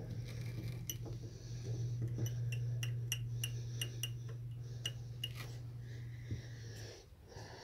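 A run of light, sharp clicks, about three a second, from fingers tapping on a wooden board, over a steady low hum that stops near the end.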